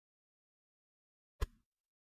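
A single sharp mouse-click sound effect about one and a half seconds in: the click of an animated subscribe button being pressed.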